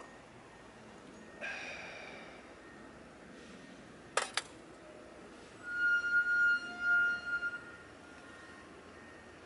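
American Staffordshire Terrier whining: a high, thin, steady tone held for about two seconds in a few broken pieces. A little before it, a ceramic mug is set down on the wooden table with two sharp clicks.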